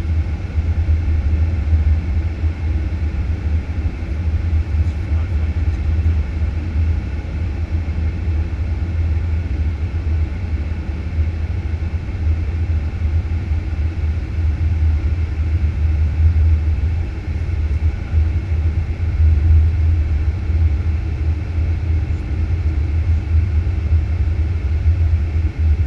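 Steady low rumble of a Boeing 737-800 flight deck on final approach, a mix of airflow and engine noise heard from inside the cockpit.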